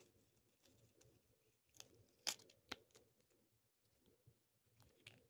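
Mostly near silence, broken by a few faint, short, crisp sounds of paper being handled. The loudest comes a little over two seconds in, with another just after it and one more near the end.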